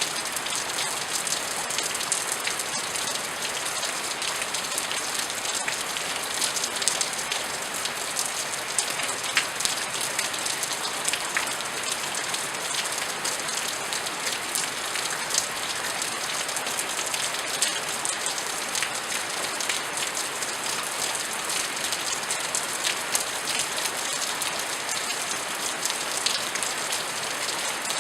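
Steady rain falling, a continuous hiss with many individual drops ticking on hard surfaces.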